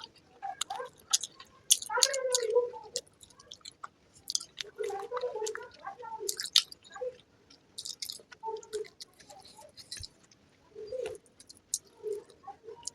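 Close-miked chewing of a mouthful of fried rice and egg curry: wet mouth sounds, lip smacks and sharp clicks coming in short irregular bursts with brief pauses between.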